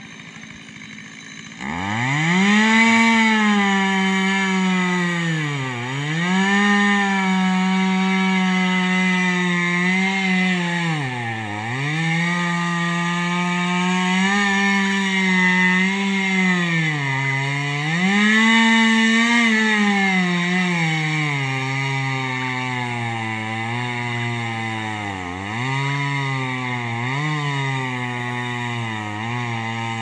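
Chainsaw throttled up about a second and a half in, then running at high revs while cutting into a tree trunk, its pitch dropping and recovering several times as the chain bogs down in the wood. Near the end it runs at lower revs and dips more often.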